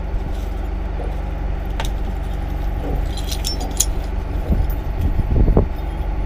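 Diesel engine of a loader running steadily, with a few light metallic clinks about three to four seconds in and a brief swell in the engine sound near the end.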